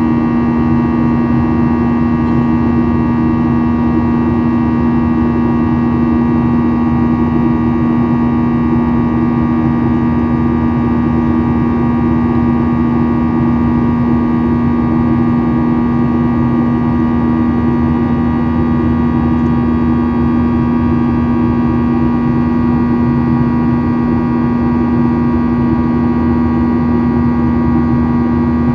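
Boeing 737-800 jet airliner's CFM56 turbofan engines running steadily: a constant loud drone with a strong low hum and several fainter steady tones above it, unchanging throughout.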